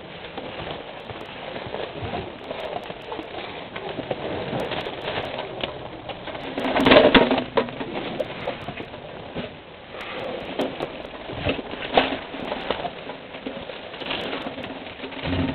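African elephants feeding right beside the microphone, with rustling and crackling as their trunks pull at grass and leaves. A louder, lower sound comes about seven seconds in and again near the end.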